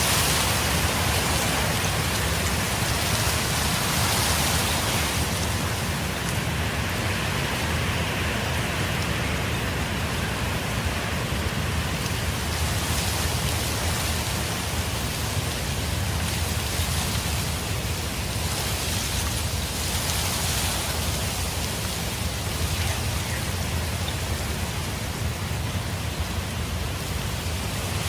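Strong wind driving a sandstorm: a steady, loud rush of wind and blowing sand with a low rumble, swelling in gusts about four seconds in and again near the end.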